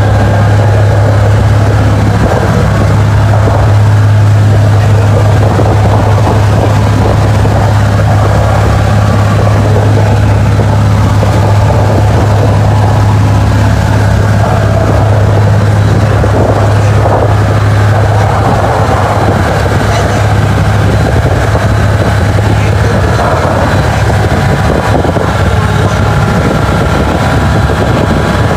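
Motorboat engine running steadily at speed, a constant low drone, mixed with the rush of the hull through the water and wind.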